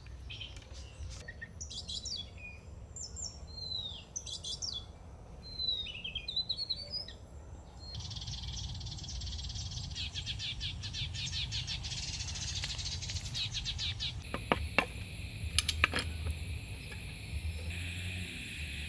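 Forest birds chirping with short rising and falling calls, giving way about eight seconds in to a dense pulsing insect chorus. A few sharp knocks come later, and steady high insect trills run near the end.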